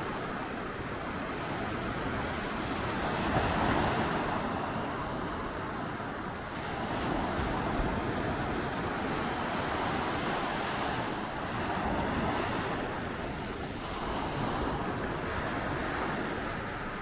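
Sea waves breaking and washing up a beach, the surf swelling and easing every few seconds, with a low wind rumble underneath.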